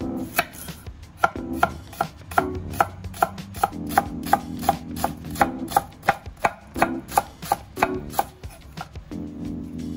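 A kitchen knife chopping on a cutting board in steady, even strokes, about two to three a second.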